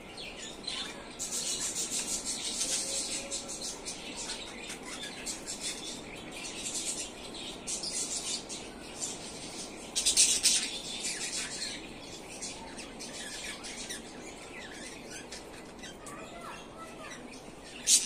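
Budgerigars chattering: a continuous run of quick high chirps and squawks, with louder bursts about a second in and again near the middle.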